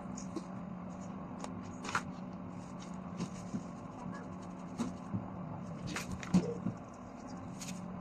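Scattered light clicks and taps over a steady low hum, with the loudest tap about two-thirds of the way through.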